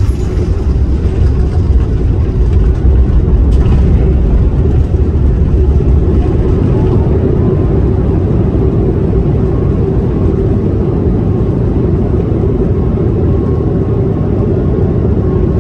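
Steady low rumble inside the passenger cabin of a Boeing 737 MAX 9 taxiing after landing, its CFM LEAP-1B engines running at taxi power.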